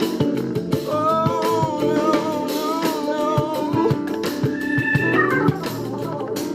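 Funk band music: a male singer holds a long note with vibrato over drums, bass and organ, and the band moves into a sustained organ chord near the end.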